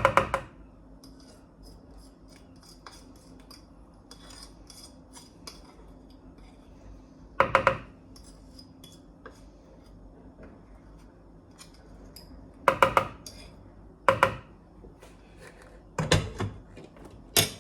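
A kitchen utensil clattering against a mixing bowl in several short bursts of quick knocks, with faint ticking and scraping between them.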